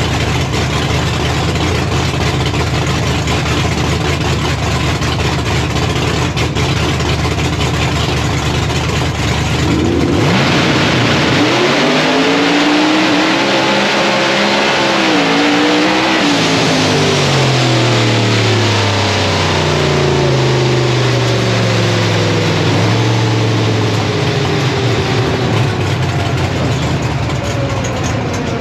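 Procharged Firebird drag car's engine heard from inside the cockpit: running steadily at the starting line, then launching about ten seconds in, rising in pitch as it accelerates down the track. It then falls away in steps and coasts down in pitch as the car lifts off and slows.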